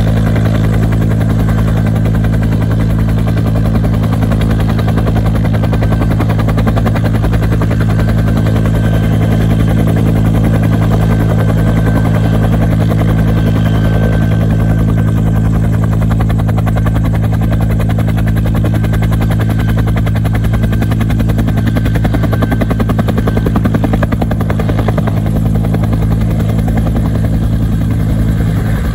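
Two-bladed Huey-type firefighting helicopter running loud at flight rotor speed on the pad, a steady rotor beat over the turbine, then lifting off into a hover with a cargo longline near the end.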